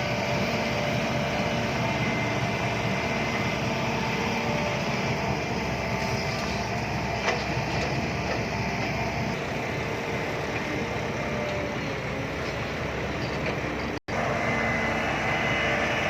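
Six-wheel dump truck's engine running steadily under way, with a few steady whining tones over the engine noise and one sharp click about seven seconds in. The sound drops out for an instant about fourteen seconds in, then carries on the same.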